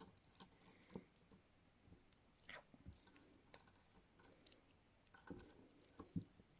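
Faint, irregular small clicks of an improvised pick working inside a handcuff lock and the cuff being handled while it is picked.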